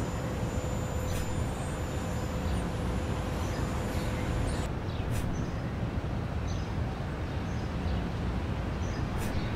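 Steady outdoor background noise, a low rumble, with faint bird chirps here and there.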